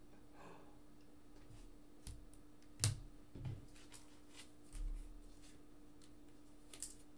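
Soft clicks and taps of trading cards and a clear plastic card holder being handled and set down on a table, a handful of separate clicks with the sharpest about three seconds in, over a faint steady hum.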